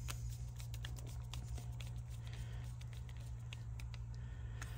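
Faint small clicks and scratches of a small insulated screwdriver turning the terminal screws of a plastic plug-in connector to clamp in the wires, over a steady low hum.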